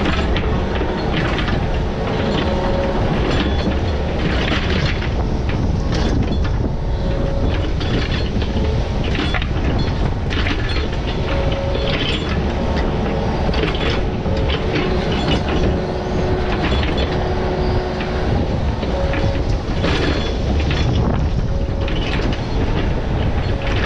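Diesel heavy equipment running steadily, with repeated metal clanks and rattles throughout and a short hydraulic-sounding whine now and then.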